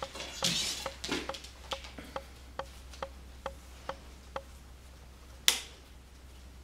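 A compound bow being handled: a run of about ten light clicks with a short metallic ring, roughly two a second and slowing slightly before they stop, then one sharp knock about a second later.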